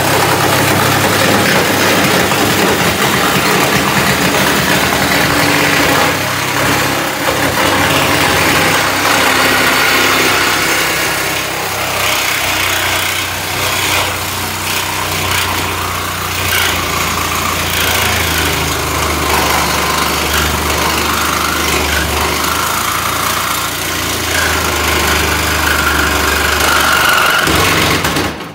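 Handheld power tool worked against the steel body of a Model A hot rod, running almost without pause with a steady low hum beneath, a little louder in the first few seconds, then stopping just before the end.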